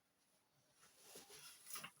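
Faint rustling and light clicks of small objects being handled, starting about halfway through and getting busier toward the end.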